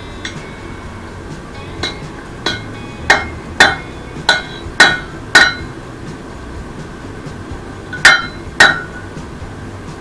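Blacksmith's hammer striking metal on an anvil, each blow ringing: a run of about seven blows at roughly two a second, a pause, then two more.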